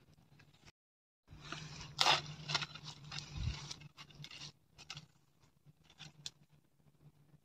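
Dry branches, twigs and leaves rustling and crackling as a branch is pulled and broken off a tree for firewood. The loudest crackle comes about two seconds in, followed by scattered small snaps and rustles that thin out.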